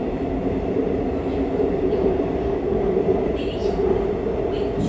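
Seoul Metro Line 3 subway train running through a tunnel, heard from inside the car: a steady hum of the motors over the rumble of the running gear.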